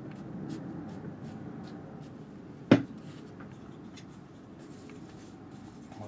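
A flat watercolour brush scrubbing and rubbing paint, a steady soft scratching, with one sharp knock a little under three seconds in.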